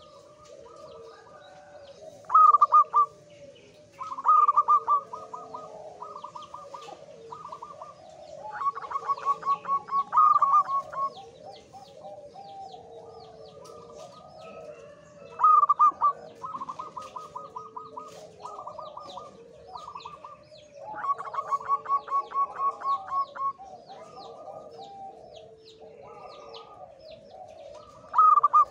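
Male zebra dove (perkutut) in breeding condition singing: a series of phrases of rapid, pulsing coos, some drawn out into long rattling trills, with short pauses between. Lower cooing runs underneath, with faint high chirps of small birds.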